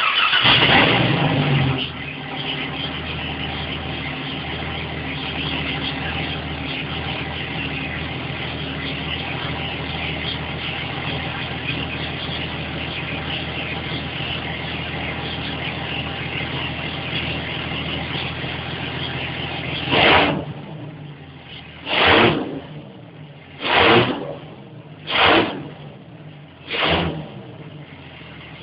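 Jeep engine starting up: it catches suddenly, runs louder for about two seconds, then settles into steady running. Near the end it is revved in five short blips, dropping back to a quieter idle between them.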